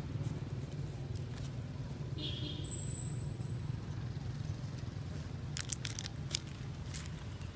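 Outdoor ambience with a steady low rumble, a brief high-pitched squeak about three seconds in, and a few sharp crackling clicks near the end.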